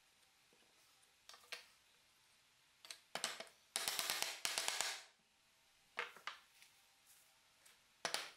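Small hammer tapping small nails into pine slats: a few single knocks, then quick runs of rapid ringing taps about four seconds in and again near the end.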